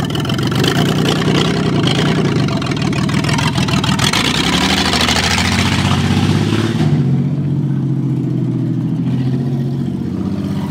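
Ford minivan's engine revving hard as the van accelerates away across a gravel yard, with a loud rush of tyres on gravel for a few seconds in the middle, then the engine note rising and falling as it drives off.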